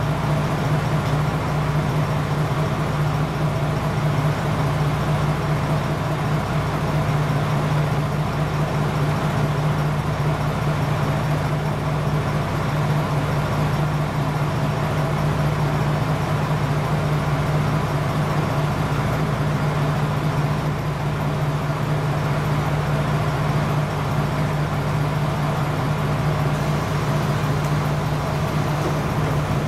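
KiHa 47 diesel railcar's engine idling, a steady deep hum with exhaust note that does not change.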